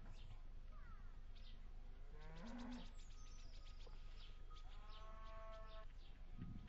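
Farm livestock calling faintly a few times: a short call about a second in, a low call near the middle, and a longer, higher call about five seconds in.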